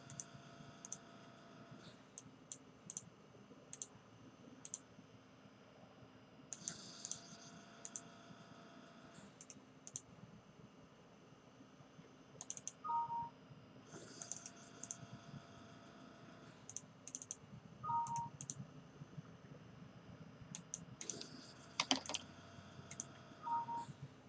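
Scattered clicks of a computer mouse and keyboard, with a short two-note electronic chime, a higher note then a lower one, sounding three times.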